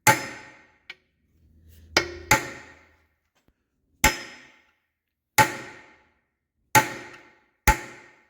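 Hammer blows driving out a stuck piston pin from a rusted Kohler K321 engine's piston, about seven sharp metal strikes roughly a second apart, each ringing briefly. The pin is stiff and seized, so it barely moves under the blows.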